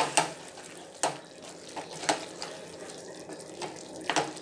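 A spatula knocking and scraping against a steel kadai while stirring chicken pieces in the watery juices they have released, with a sharp clink roughly every second over a wet, sloshing sound.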